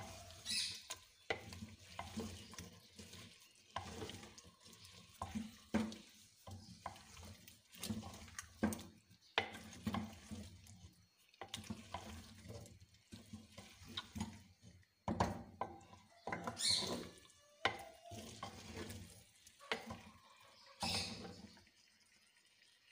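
Wooden spoon stirring and scraping potatoes and cauliflower around a clay cooking pot, in irregular strokes and knocks against the pot's sides, stopping near the end.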